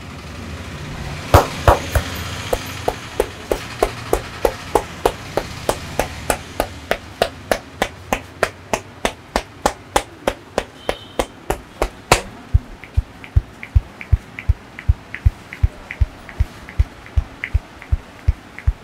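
Rhythmic hand strikes of a barber's percussion massage, sharp slaps landing about three times a second. They end with one louder smack about two-thirds of the way through, then give way to softer, deeper thumps at a similar steady pace.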